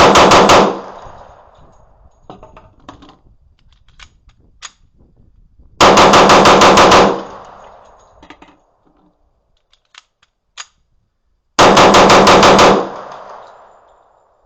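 Magnum Research 1911 10mm pistol fired in rapid strings: a magazine's worth of shots in just over a second, three strings about six seconds apart. Light clicks and clinks come in the gaps between strings.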